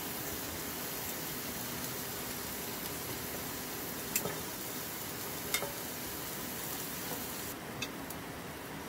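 Meat sizzling steadily on a griddle pan over a portable butane gas stove, with three sharp clicks in the second half.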